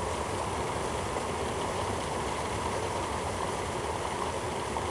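Fountain water splashing and spraying in a steady rush.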